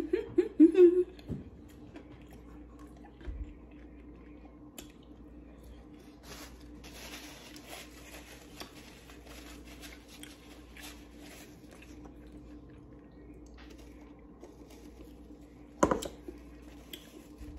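Quiet chewing and crunching of fried chicken, with scattered small clicks and one sharper tap near the end, over a steady low hum.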